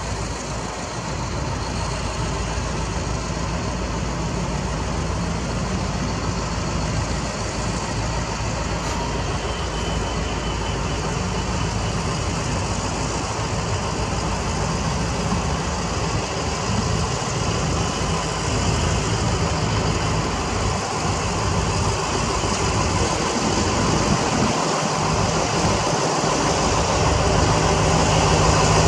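Diesel locomotive engine running as the train rolls slowly along the station tracks, a steady hum that grows louder toward the end as the locomotive comes closer.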